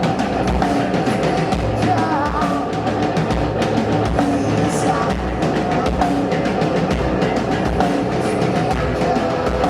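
Live hard rock band playing a passage without vocals: drum kit keeping a steady beat under guitars and bass.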